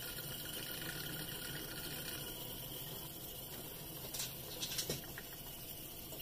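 1956 Silvertone 6074 reel-to-reel recorder's motor and tape transport running with a steady whir, the transport engaged and spinning. A few short clicks come about four and five seconds in.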